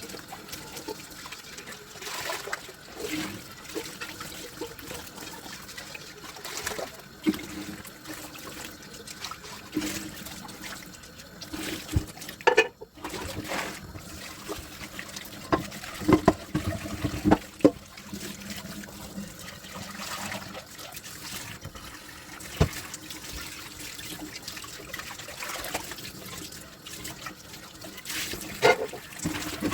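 Water trickling and running in a kitchen sink as dishes are washed by hand, with scattered knocks and clinks of dishes, several close together in the middle and another near the end.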